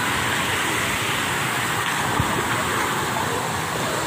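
Steady rush of water falling and splashing into a shallow pool from a water-park play structure's spouts, an even hiss with no rise or fall.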